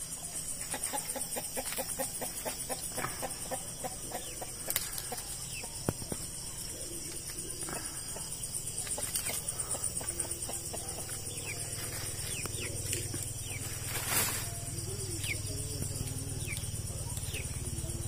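Roosting chickens stirring in a tree at night, with soft clucks and brief wing flutters, over a steady high chorus of night insects.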